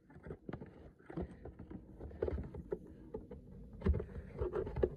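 Scattered faint clicks, scrapes and rustles of plastic packaging being handled and worked loose, with pliers in use.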